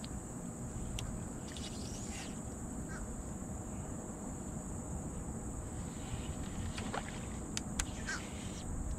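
Steady low rumble of wind and water around a bass boat on open water, with a few faint bird calls and a few light clicks over it.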